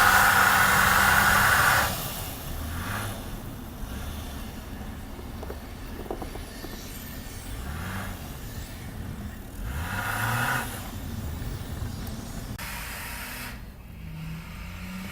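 Road traffic passing on a snowy street: tyres hissing through the snow and slush with engines running. The hiss is loudest in the first two seconds, and an engine rises in pitch about ten seconds in.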